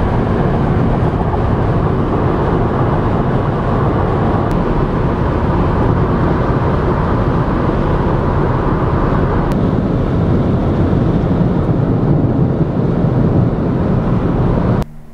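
Steady road and wind noise inside a car cruising at highway speed, cutting off abruptly near the end.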